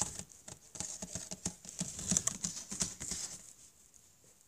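Plastic model horse tapped and scuffed along a cardboard floor to act out a trot: a quick, irregular run of light clicks and taps that thins out and fades near the end.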